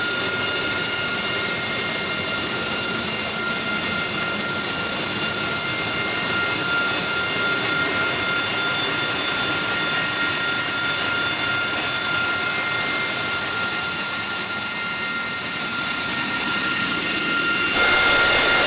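Harrier II's Pegasus turbofan running on the ground: a loud, steady jet whine made of several high tones over a rushing hiss. Near the end it cuts suddenly to a louder, harsher jet noise.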